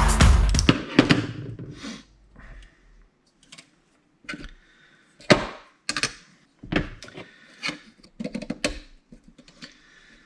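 Music fading out in the first second or two, then scattered clicks, knocks and short scraping sounds of small plastic and metal printer parts being handled and unscrewed as the motor is worked loose.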